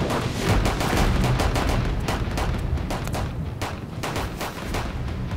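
Volley of pistol shots from a line of several shooters firing at once, many sharp cracks overlapping in quick, uneven succession.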